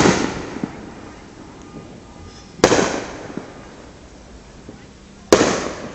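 Aerial firework shells bursting overhead: three booms, one at the very start and then one about every two and a half seconds, each trailing off in a rolling echo.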